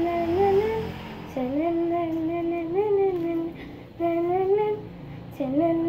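A young girl humming a wordless tune in short phrases that rise and fall in pitch, with brief pauses between them.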